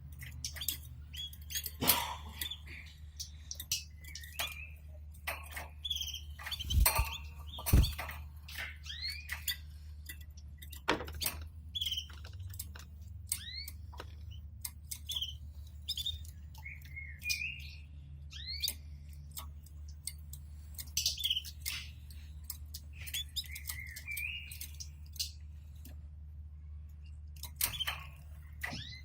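Domestic canaries giving short, scattered chirps and call notes, among frequent sharp clicks and knocks of the birds moving about the cage and nest; the loudest knocks come about 2, 7 and 8 seconds in. A steady low hum runs beneath.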